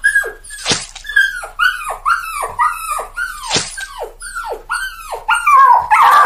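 A dog yelping in quick, short, falling cries, about two a second, getting louder and longer near the end.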